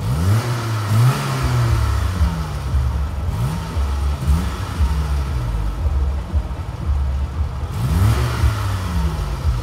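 Vehicle engine running close by, with the revs rising briefly several times: near the start, around three to four seconds in, and again near the end.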